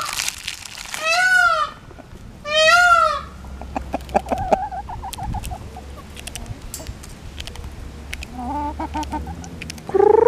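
Chickens squawking: three loud calls that rise and fall in the first three seconds, then softer runs of short clucks, with another loud call right at the end.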